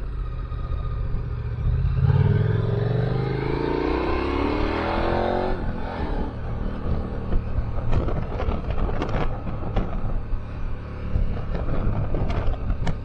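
KTM 1290 Super Adventure R's V-twin engine accelerating, its pitch rising for about three and a half seconds before it drops off suddenly; then the engine runs on at a low rumble with scattered short thumps and wind noise on the camera microphone.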